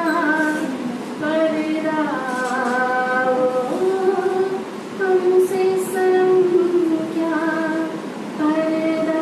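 A woman singing a slow solo melody without accompaniment, holding long notes and gliding between them.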